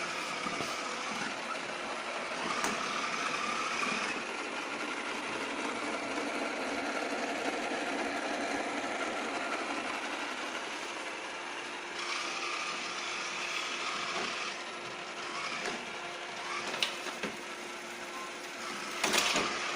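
Iseelife robot vacuum running: a steady motor whir with brush and wheel noise that shifts in tone a couple of times, and a few sharp knocks near the end.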